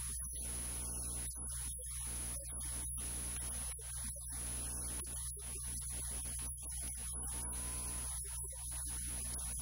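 Steady electrical mains hum under a layer of static hiss, with a thin high-pitched whine held throughout.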